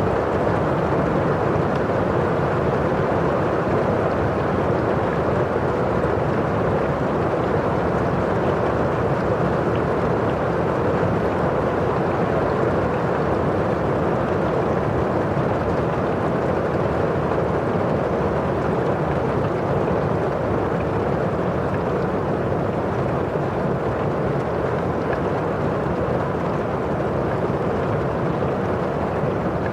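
Steady rain on a window pane and falling outside: an even, unbroken hiss.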